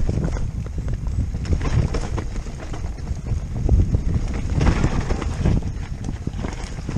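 Wind buffeting the microphone with a low rumble as a Giant Stance E+ electric mountain bike runs fast down a dirt trail, with tyre noise and frequent knocks and rattles from the bike over bumps. A louder rush of noise comes about two-thirds of the way through.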